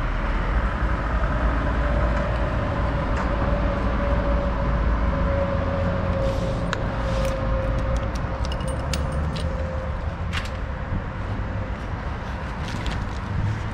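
Steady low rumble of a vehicle engine running, with a wavering mid-pitched hum over it for the first ten seconds. From about six seconds in come a string of small sharp clicks and knocks as the motorcycle's fuel filler cap is closed and the tank bag handled.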